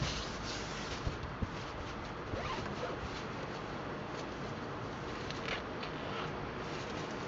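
A zipper pulled in several short strokes, over a steady hiss of surf and wind.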